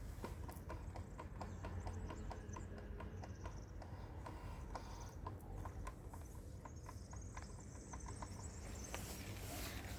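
Repeated light clicking knocks, a few a second and unevenly spaced, from play in the front suspension fork of a new Segway Ninebot GT3E electric scooter: the fork is loose straight out of the box.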